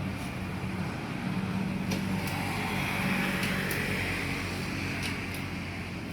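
A car engine running steadily at idle, with a hiss that swells and then fades in the middle.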